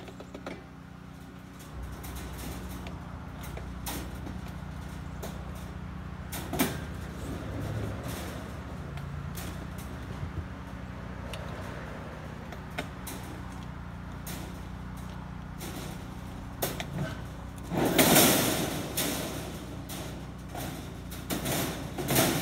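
Steel cattle panels clanking and scraping against one another and the pickup bed as they are shifted. There are scattered metallic knocks, and a loud, drawn-out scraping rattle about 18 seconds in.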